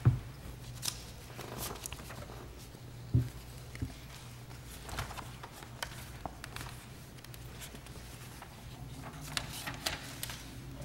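Quiet meeting-room tone: a steady low hum, with a soft thump at the start and another about three seconds in, and scattered faint clicks and rustling.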